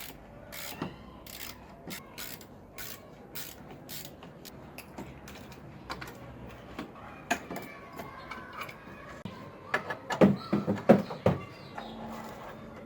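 Hand-tool work on a car radiator: a run of sharp, ratchet-like clicks about two a second, then a cluster of louder knocks near the end.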